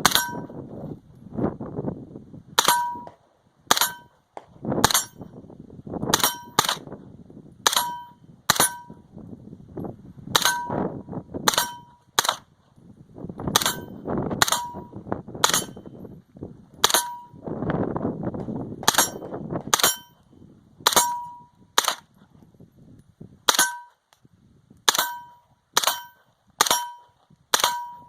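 A long string of single, aimed gunshots, roughly one a second, starting a few seconds in. Most shots are followed by the short ring of a struck steel target.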